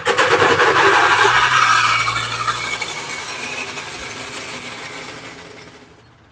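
Wheeled log splitter rattling and scraping as it is dragged over pavement: a loud, fast metallic rattle that fades steadily over about five seconds.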